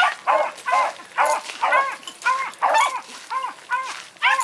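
Beagle baying on a rabbit's track: a steady run of short, pitched barks, about three a second, the hound giving tongue as it follows the scent.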